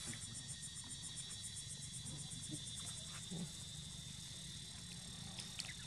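Steady outdoor insect chorus, a high, finely pulsing trill, over a faint low hum, with a couple of faint clicks near the end.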